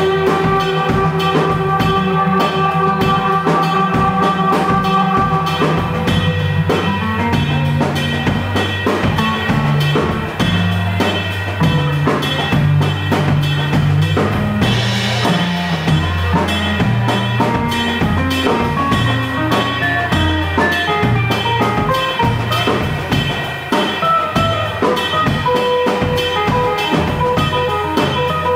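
Live instrumental trio of violin, acoustic guitar and drum kit. The violin holds long notes for the first six seconds or so, then drops out. A low acoustic-guitar riff carries on over a busy drum beat.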